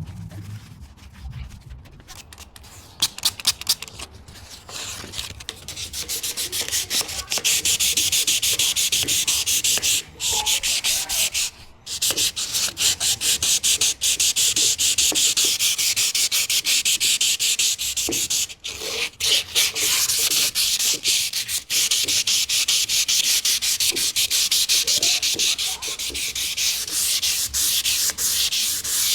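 Sanding on the old studio light, a rapid rasping of quick back-and-forth strokes. It starts softly with a few sharp clicks, becomes loud and steady a few seconds in, and pauses briefly a few times.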